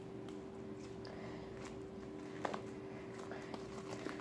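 Fluffy slime being squeezed and worked by hand, giving small scattered clicks and pops, one sharper about two and a half seconds in, over a steady faint hum.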